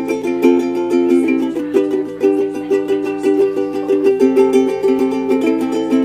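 Makala Shark ukulele played with quick, steady rhythmic strumming of chords.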